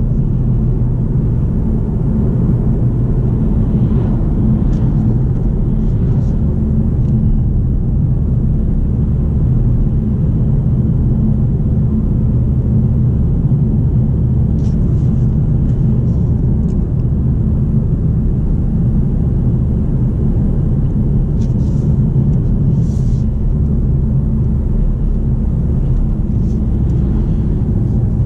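Kia XCeed's 1.6 CRDi four-cylinder turbodiesel running steadily on the move, with a constant low rumble of engine and road noise heard from inside the cabin.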